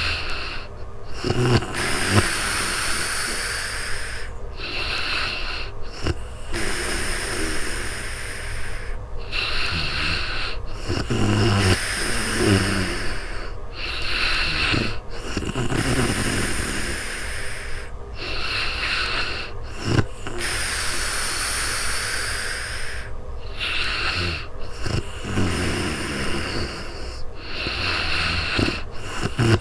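A sleeping woman snoring: slow, noisy breaths in and out, each about two seconds long with a brief pause between, some carrying a low rattling rumble.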